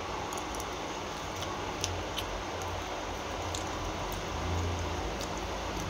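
A spoon clicking lightly against a bowl a handful of times as noodles are scooped and eaten, over a steady background hum.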